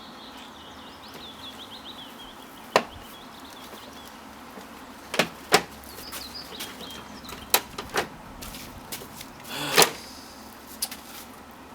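Sharp clicks and knocks, about six of them spaced irregularly, the loudest near the end, as the plastic front-bumper trim of a Volkswagen Transporter T5 is handled and pried at while looking for its fixings. Faint high chirps in the first couple of seconds.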